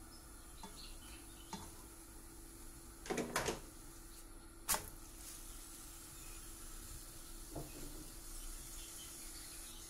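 A thin crêpe lifted by hand and flipped over in a nonstick frying pan: a brief rustling scrape about three seconds in, then a sharp slap as it lands just under five seconds in, with a few soft taps around it over a faint steady hum.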